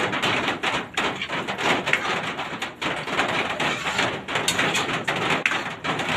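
Metal spoon stirring thick cream sauce in a steel pan, with irregular scrapes and clicks against the pan.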